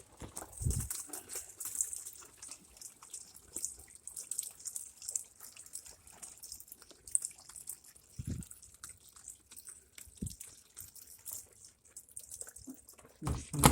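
Water running and splashing into an LG washer, its inlet valve letting water in, with small clicks and a few dull knocks about a second in and again near the eighth and tenth seconds.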